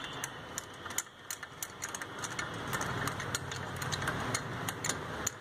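Ratchet wrench clicking as it runs down a cylinder head bolt, a quick, uneven run of sharp clicks, about three to five a second.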